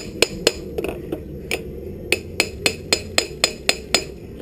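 Rapid, steady hammer taps on the crash-bent exhaust of a 2016 Aprilia RSV4 RR, about four strikes a second, knocking the dented metal back into shape a little at a time.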